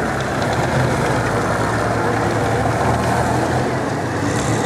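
T-34-85 tanks driving past one after another, their V12 diesel engines running with a steady loud drone alongside the noise of their tracks.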